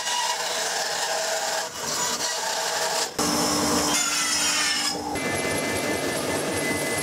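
A hand or power tool working wood, a dense scraping noise. It runs as several back-to-back segments that change abruptly a few times.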